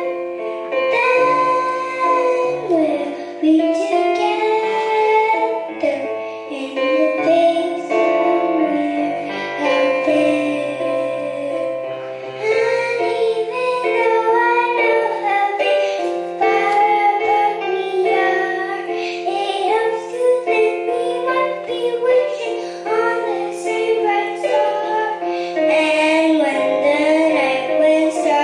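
A young girl singing a solo into a microphone, her amplified voice carried over steady instrumental accompaniment.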